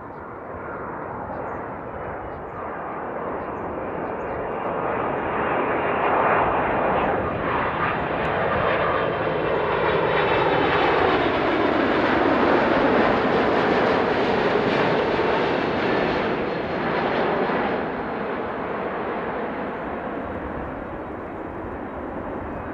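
Boeing 767 freighter's jet engines on final approach, passing low overhead. The engine noise builds, is loudest about halfway through, and carries a whine that falls in pitch as the aircraft goes by, then eases off as it moves away.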